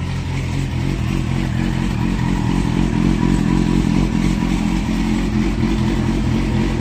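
Triumph Speed Four motorcycle's 600 cc inline-four engine running steadily, getting a little louder about a second in.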